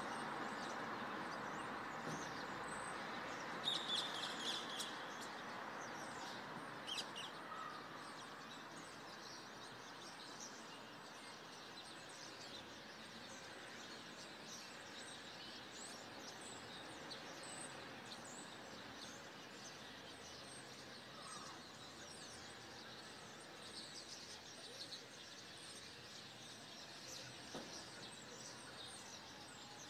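Many small birds chirping, with short high calls scattered throughout and a louder burst of calls about four seconds in, over a faint steady background noise that eases during the first several seconds.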